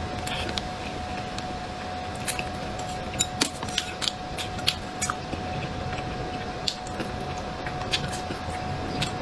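Close-up wet chewing and lip-smacking of soft, sticky braised pork, with many short clicking mouth sounds scattered irregularly through it. A thin steady hum runs underneath.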